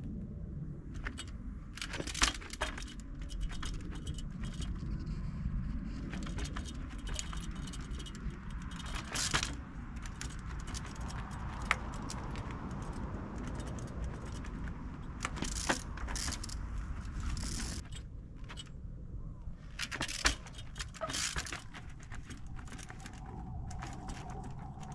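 20-inch trials bike ridden over rough ground: metallic jangling and rattling of the chain and parts, with sharp knocks of the wheels landing at irregular intervals, over a steady low rumble.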